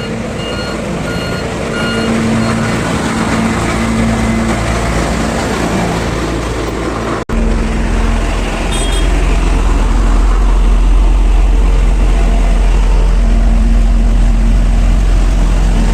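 Road roller's diesel engine running under load, with its reverse alarm beeping steadily for about the first second and a half. After a brief break about seven seconds in, a deep low rumble becomes the loudest part of the sound.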